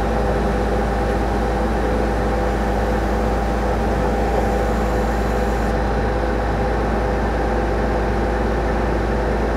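Well-drilling rig's engine running steadily, a constant mechanical drone with a faint steady whine on top.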